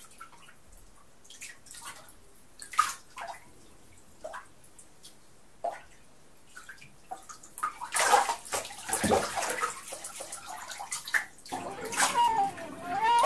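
Bathwater sloshing and dripping in a tub, with scattered small splashes that grow louder and busier from about eight seconds in. A wavering, warbling musical tone comes in near the end.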